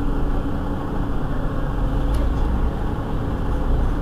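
Mercedes-Benz Citaro G C2 articulated city bus under way between stops, heard from inside the passenger cabin: a steady engine and road rumble with a faint click about two seconds in.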